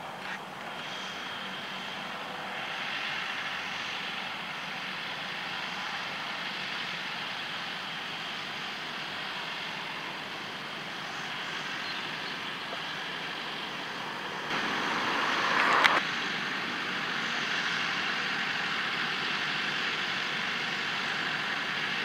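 John Deere tractors running steadily under load as they pull a Grimme potato harvester and a trailer through the field, with the harvester's machinery working. A little past the middle, a louder rushing noise builds for about a second and a half and then stops abruptly.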